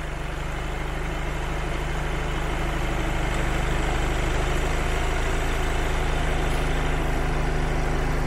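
Volkswagen TDI turbodiesel engine idling steadily just after being started, with an even, unchanging note.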